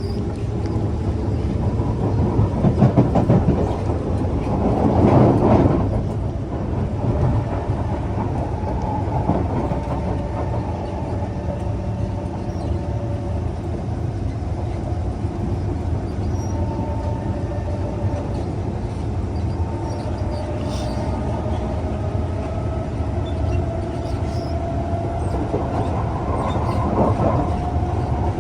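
Kawasaki C151 metro train running along the track, a steady rumble of wheels and running gear with a whining tone from the drive. A run of rapid clicks and a louder swell come a few seconds in, and the whine rises slowly in pitch near the end.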